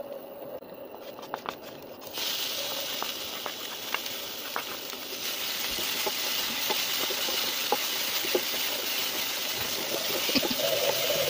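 Chopped chilies and shallots frying in hot oil in a nonstick pan. A sizzle starts suddenly about two seconds in and grows louder a few seconds later. Scattered light clicks come from the spatula stirring against the pan.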